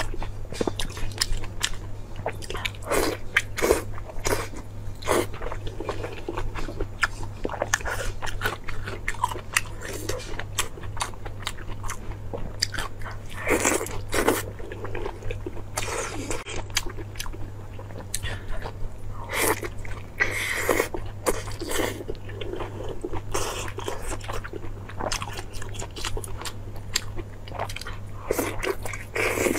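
Close-miked chewing and biting of braised, sauce-coated stuffed pork intestine: a run of irregular wet bites and chews, one after another, over a steady low hum.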